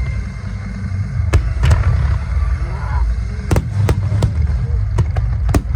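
Large fireworks shells bursting: a series of sharp bangs, about six, over a continuous deep rumble of booms.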